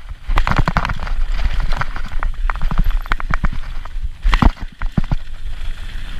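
Orange mountain bike descending rocky singletrack at speed: tyres knocking and crunching over rocks and roots, with the bike clattering at each hit over a steady low wind rumble on the microphone. A heavier impact comes about four and a half seconds in.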